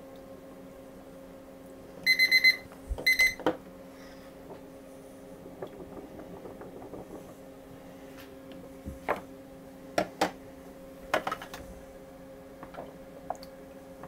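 Digital darkroom timer beeping in two quick bursts of rapid beeps, signalling the end of the 30-second RA4 colour developer step. A few sharp clicks and knocks from the print trays follow later, over a steady low hum.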